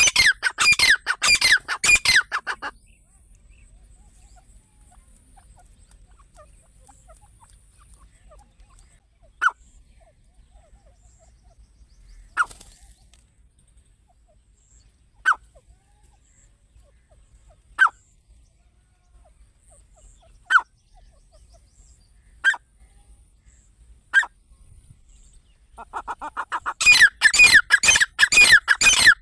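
Francolin (teetar) calling: a loud, rapid run of harsh repeated notes that stops about two and a half seconds in. Seven single short, sharp calls follow every two to three seconds, and near the end the loud rapid run of calls starts again.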